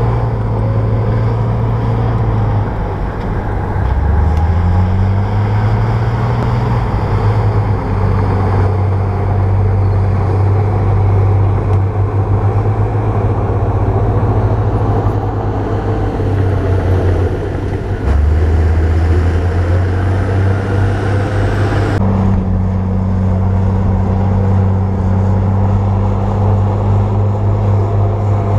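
Bulldozer's diesel engine running steadily under work, its revs dipping and recovering twice. The engine note changes abruptly about three-quarters of the way through.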